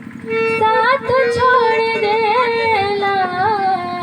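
A woman singing a Bhojpuri song alone, holding long wavering notes with a short breath near the start; the melody falls toward the end.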